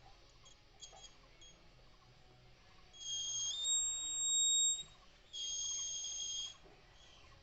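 Piezo buzzer of a homemade laser and LDR security alarm sounding: a high-pitched steady beep of about two seconds that steps up in pitch partway through, then a second beep of just over a second.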